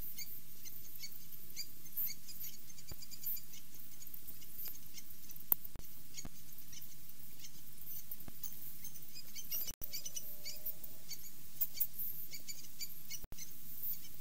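Small birds chirping, many short high chirps overlapping all through, over a faint steady low hum. The sound cuts out for an instant twice in the second half.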